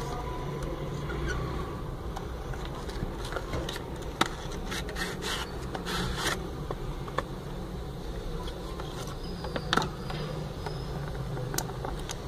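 Cardboard gift box being opened by hand and its inner tray slid out: scraping and rubbing with scattered taps, over a steady low hum.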